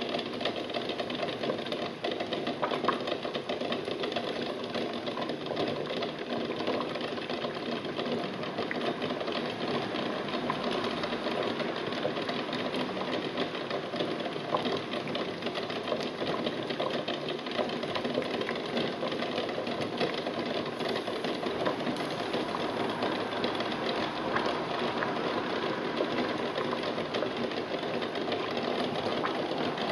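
Water at a full rolling boil bubbling steadily in a stainless steel pot of eggs, with a fast, constant ticking running through the bubbling.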